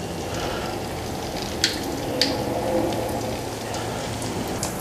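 Thin slices of chilled tapioca-starch and garlic cracker dough sizzling steadily in hot frying oil, with a couple of sharp clicks about a second and a half and two seconds in.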